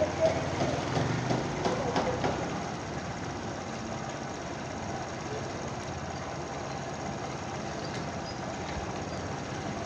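Motorcycle engine running steadily at low road speed, heard from on the bike as an even, continuous engine noise. A few short clacks sound in the first two seconds.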